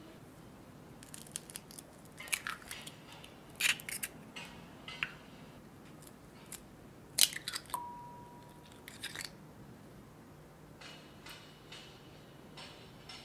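Kitchen prep sounds: scattered sharp clicks and taps of utensils against glass bowls as flour is stirred with chopsticks and eggs are cracked into a bowl, the loudest tap about seven seconds in. Just after it, a steady beep sounds for about a second.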